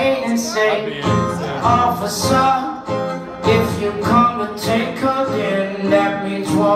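A man singing live to his own strummed acoustic guitar, amplified through the stage PA.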